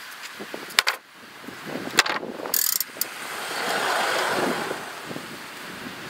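Sharp metal clicks and clanks from a Woodland Mills HM122 manual sawmill being handled with its engine not cutting, then a rush that swells and fades in the middle as the sawhead is rolled along its steel track.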